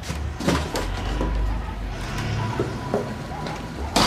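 Footsteps, then a front door shutting with one loud, sharp knock about four seconds in.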